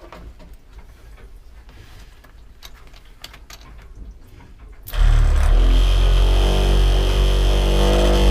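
Bilge sump pump switching on suddenly about five seconds in and running steadily with a hum and a hiss, pumping out the dirty wash water; before it starts, only faint clicks of handling.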